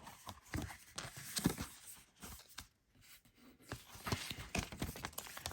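Paper and cardboard packaging being handled: soft rustling with scattered light clicks and taps.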